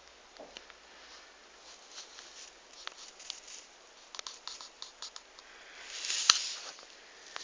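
Handling of a tablet and its packaging: a string of light clicks and taps, then a louder rustling scrape about six seconds in with one sharp click.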